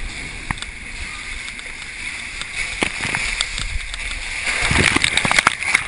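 Water rushing and splashing around a rider sliding down an enclosed water slide tube, with scattered knocks of the body against the tube; the rush grows louder and splashier near the end.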